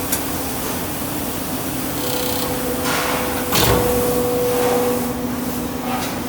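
Die-casting machine running: a steady mechanical hum with short hisses and clunks, the loudest about three and a half seconds in.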